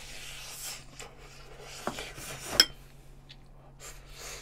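A sip from a small cup, then dishware knocking on the tray: a light knock, and about two and a half seconds in a sharp, briefly ringing clink.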